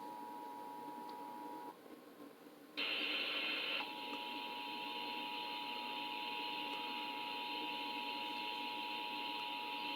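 Emergency Alert System attention signal: two steady tones sounded together, the 853 Hz and 960 Hz alert tone, heard through broadcast TV audio. Near 2 s in the tone drops out for about a second, then comes a short, louder burst of rough, noisy sound before the two-tone alert resumes over a steady hiss.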